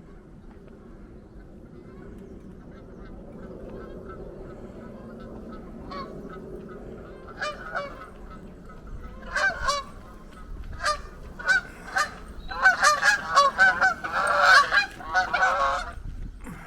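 A flock of geese flying low overhead, honking. The honks start faint and scattered, then grow louder and come thicker, loudest over the last few seconds.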